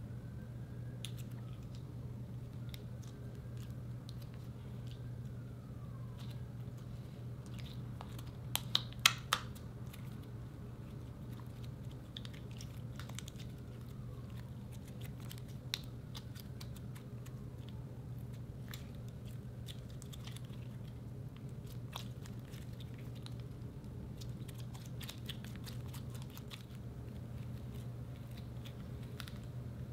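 White slime being squished and kneaded by hand as lipstick is worked into it, giving scattered sticky clicks and pops, with a cluster of louder pops about nine seconds in. A steady low hum sits underneath.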